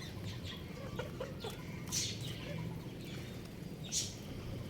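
Chickens clucking in short low calls, with two loud high peeps falling in pitch, about two seconds apart, typical of chicks.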